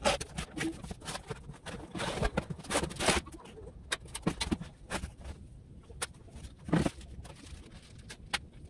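Cardboard box being opened and unpacked: flaps and cardboard inserts scraping and rustling, a metal gable fan pulled out, and paperwork in a plastic bag crinkling, with scattered clicks and knocks.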